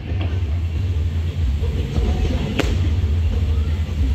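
Aerial fireworks: one sharp shell bang about two and a half seconds in, over a steady low rumble.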